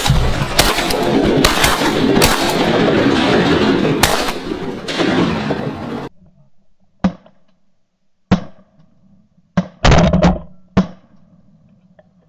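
Shotgun blasts at flying ducks. The first half is a loud rush of noise struck through by many sharp cracks, which stops abruptly. After that come about six separate blasts, a second or so apart, over a much quieter background.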